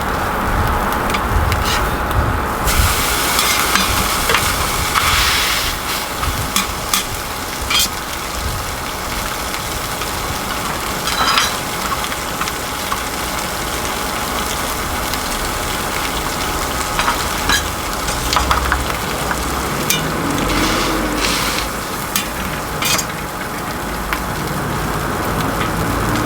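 Food frying and sizzling on a griddle for a Korean street toast, a steady hiss with scattered sharp clicks throughout.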